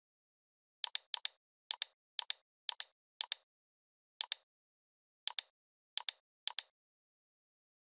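Computer mouse button clicking about ten times at an uneven pace, each click a quick pair of snaps as the button goes down and comes back up.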